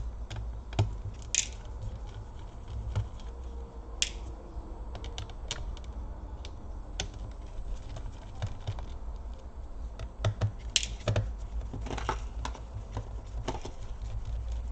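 Irregular small clicks and brief scrapes of a precision screwdriver taking out the screws of a laptop's bottom cover, with tiny screws and the tool being handled and set down.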